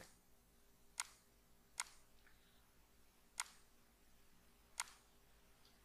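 Computer mouse clicking four times at uneven intervals, short sharp clicks over near silence.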